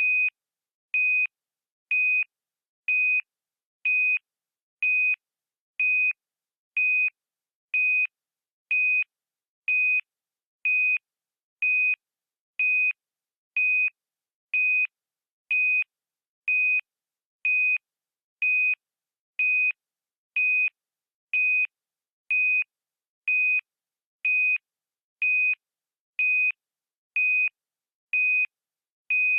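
Electronic beeper sounding a short, single high-pitched beep about once a second, repeating steadily with silence between beeps.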